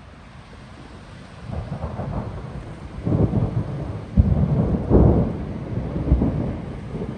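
Thunder rolling in about a second and a half in, rising to a loud rumble with sharp cracks around the middle, then rumbling off toward the end.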